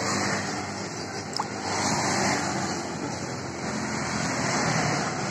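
Motor vehicle engine and road traffic noise running steadily, with a single sharp click about a second and a half in.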